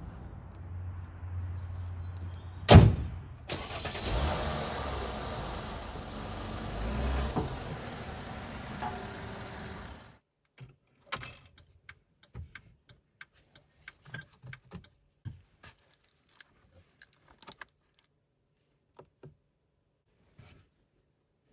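Car sounds: a steady low hum, then one loud sharp bang about three seconds in. A steady rushing noise with a low hum follows and stops abruptly about ten seconds in. Scattered light clicks come after.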